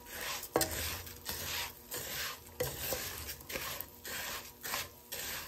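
Wooden spatula stirring and scraping raw rice grains around a nonstick frying pan, a rustling, rasping stroke about twice a second with the odd sharper click, as the rice is toasted in a little oil before the water goes in.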